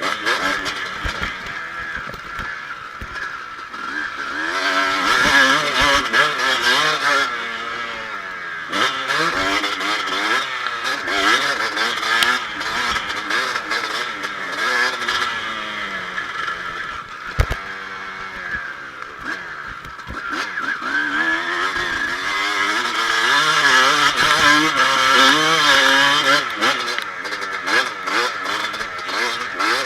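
Kawasaki KX250 motocross bike's engine, ridden hard, its pitch climbing and dropping over and over as the throttle is opened and shut. One sharp knock a little past halfway.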